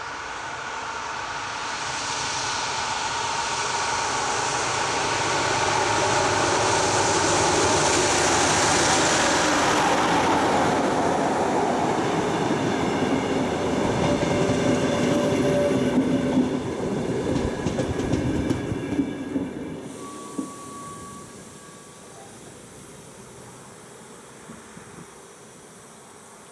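A regional passenger train hauled by a Dv12 diesel locomotive pulls into a station. It grows louder as it draws alongside, with wheels clattering over the rail joints, then its brakes squeal as it slows. It comes to a stop about twenty seconds in, leaving a low steady running sound.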